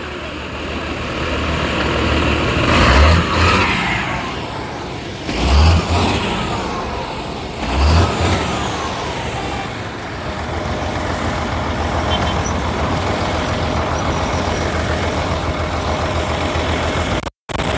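Heavy tipper truck's diesel engine revving up and down a few times as the truck pulls away slowly, with pitch glides falling as the revs drop; from about halfway on it runs steadily.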